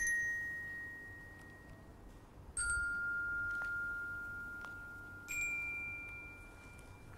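Three slow struck chime notes, about two and a half seconds apart, each at a different pitch and ringing on, fading, until the next is struck.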